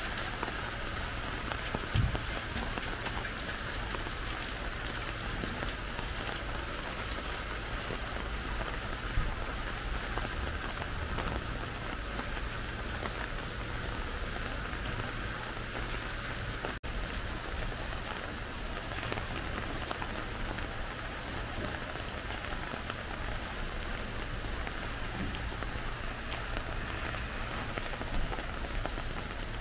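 Steady rain falling and pattering on paving, with a couple of brief knocks about 2 and 9 seconds in.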